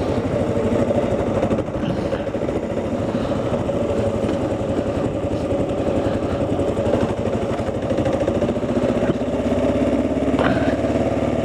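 Kawasaki KLR motorcycle's single-cylinder engine running steadily.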